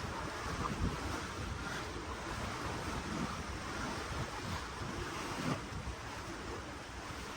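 Ocean water washing and churning below a cruise ship, with wind gusting over the microphone in low rumbles.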